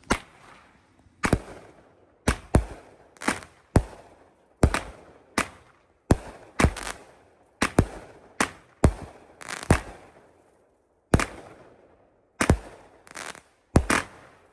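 Consumer 200 g firework cake firing its 16 shots: a run of sharp bangs about every half second to a second, launches and bursts running together, each with a short decaying tail. There is a brief pause about ten seconds in.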